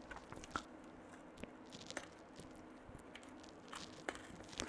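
Faint, scattered small clicks and crackles of a plastic pry tool working an iPhone's screen loose from its frame.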